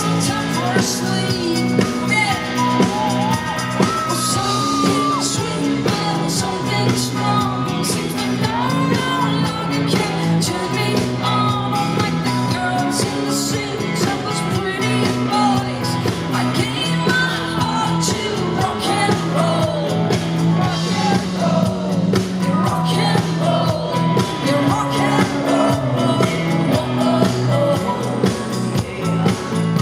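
Live rock band playing a song with a singer, with drums, bass and guitars and a steady beat.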